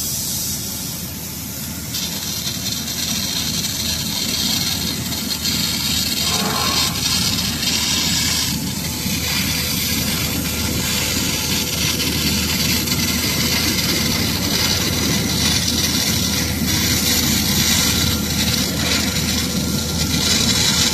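Laser cutting machine running through a cut in steel plate: a steady loud hiss over a low mechanical rumble, with small rises and falls in the hiss.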